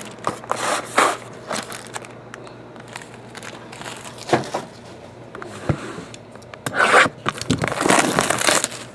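Plastic wrapping crinkling and tearing, with scattered clicks and scrapes, as a sealed box of trading cards is unwrapped and opened. The rustling is loudest for a stretch near the end.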